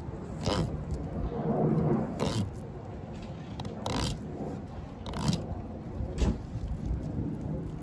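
Fillet knife running along a flounder's backbone and rib bones as the fillet is cut away, a zipper-like rasp that comes in several short strokes a second or two apart.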